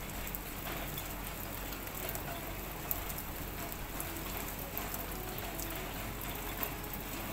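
Steady rain falling on garden plants and ground, with scattered sharp taps of drops landing close by.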